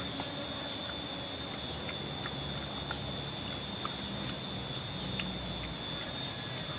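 Steady high-pitched drone of insects such as crickets or cicadas, holding two unbroken tones, with small chirps and scattered faint clicks over it.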